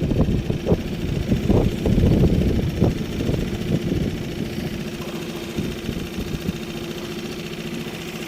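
Small boat's motor running steadily at low trolling speed, with irregular heavy thumps of waves hitting the hull through the first half that die away about halfway through.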